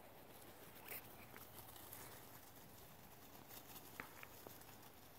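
Near silence, with a few faint short ticks, one about a second in and one near four seconds.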